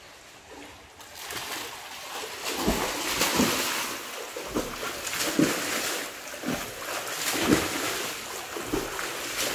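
A swimmer doing butterfly stroke in a pool: rising splashing from about a second in, with a heavy slap of water from the arms and kicks roughly once a second.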